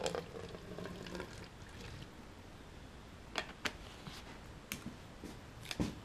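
Vinegar poured from a plastic gallon jug into a plastic spray bottle, a liquid gurgle for about the first second. Then several sharp clicks and knocks of plastic bottles being capped, set down and handled, with a louder knock near the end.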